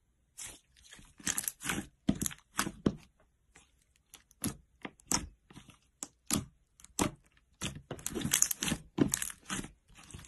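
Slime being squeezed and worked, giving many irregular sharp pops and crackles with short gaps between them.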